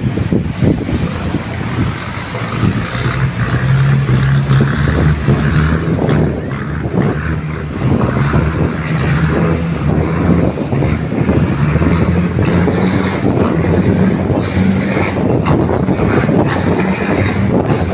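Tugboat engine running steadily with a deep, low hum while towing barges, its pitch drifting slightly, with wind buffeting the microphone.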